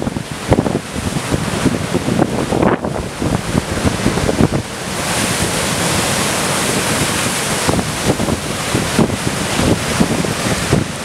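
Storm surf: heavy waves breaking and churning against rocks and a sea wall, with strong gusts of wind buffeting the microphone. About five seconds in, a big wave breaks and makes a steady rushing roar that lasts a few seconds before the gusting takes over again.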